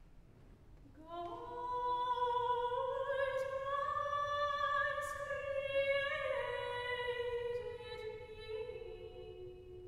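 Solo female soprano voice singing alone, entering about a second in with long held notes that step down in pitch in the second half, in a large church's reverberant acoustic.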